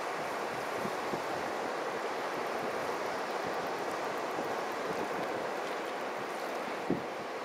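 Steady wash of sea surf, with a single brief thump near the end.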